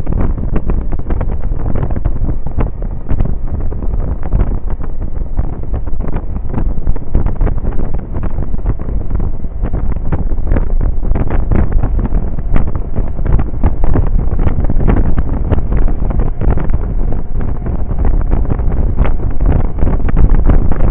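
Heavy wind buffeting on the microphone of a scooter riding at road speed. It is a constant low rumble broken by rapid, irregular gusty flutters.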